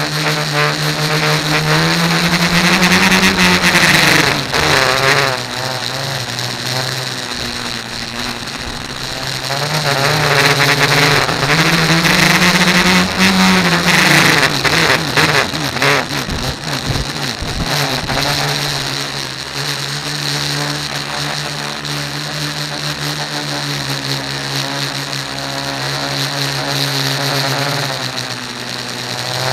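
A tricopter's three electric motors and propellers whirring, heard from its onboard camera. The pitch climbs and falls back twice, about two seconds in and again about ten seconds in, as the throttle is worked. A short spell of crackling comes a little past the middle.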